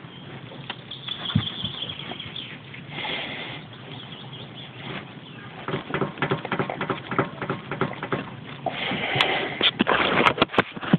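Irregular knocking and clicking from a third-generation Ford Focus's steering rack, coming thicker and louder in the second half: the steering rack knock on a car with only about 5,000 km.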